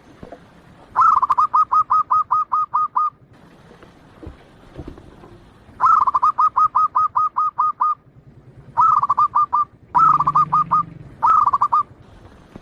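Zebra dove (perkutut) cooing: five phrases of quick staccato notes, about five a second, each phrase opening on a longer, slightly higher note. The first two phrases are long and the last three are short and close together.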